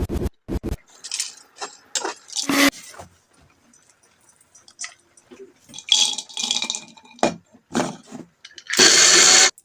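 Kitchen food-preparation sounds: scattered clinks, taps and scrapes of utensils and food being handled, ending in a loud rushing noise for most of a second.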